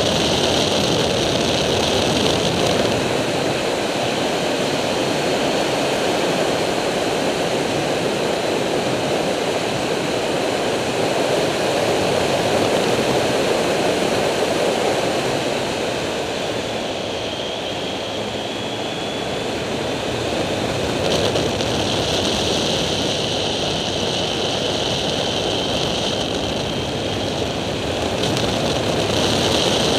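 Triumph Street Triple's 675 cc three-cylinder engine running at road speed, heard from a camera on the moving bike, mixed with a steady rush of wind noise. It eases off a little for a few seconds about halfway through, then picks up again.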